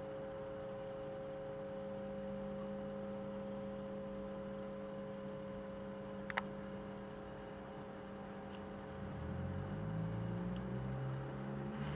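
Pinto J.C. Penney CB radio on its AC adapter putting out a steady hum made of several held tones, which the owner takes for AC hum that goes away on DC power. There is a single click about six seconds in. From about nine seconds a louder, lower, wavering hum joins in.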